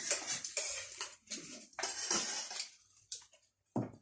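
Spoons scraping and clinking against dishes in quick, irregular strokes as people eat fast, with a short lull about three seconds in.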